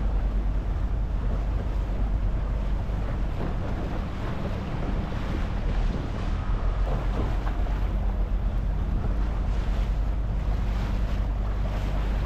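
Small tour boat under way on the sea: a steady low rumble of the boat running, with water washing and wind buffeting the microphone.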